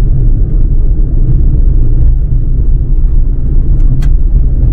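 Car driving on an unpaved dirt road: a loud, steady low rumble of tyres and running gear, with one sharp click about four seconds in.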